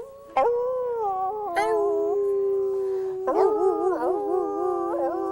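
A dog howling in long, drawn-out notes that waver in pitch, with a second howl overlapping about three seconds in.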